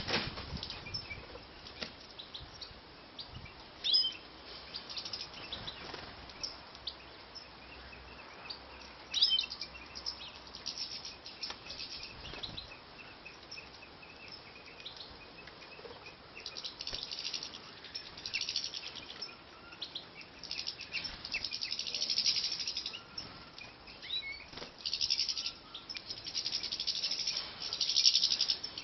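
Aviary finches chirping and twittering: scattered short calls at first, with two sharper calls, then denser high twittering from about halfway through that grows busier toward the end.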